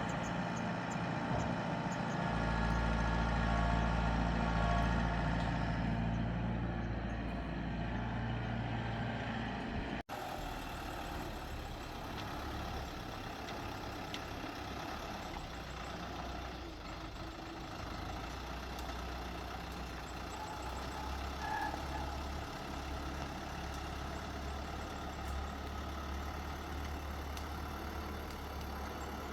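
A heavy vehicle engine running steadily, louder in the first ten seconds, then after an abrupt cut continuing as a quieter, steady low hum.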